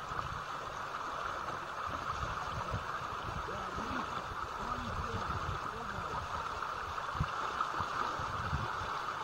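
Shallow river riffle running, a steady rushing hiss of water over stones, with uneven low rumbles of wind on the microphone.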